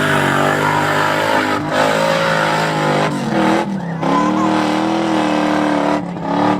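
Off-road 4x4 truck's engine revving hard, its pitch rising and falling, with short dips about a second and a half in, around four seconds in and near the end.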